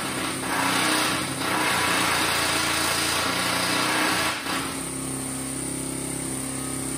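A machine's motor running steadily with a hiss over it, louder for the first few seconds, then with a stronger low hum.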